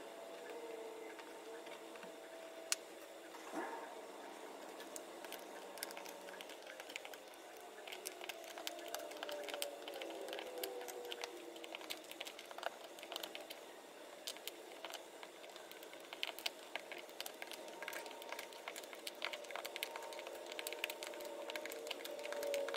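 Scattered light clicks and taps of small items being handled, coming thicker in the second half.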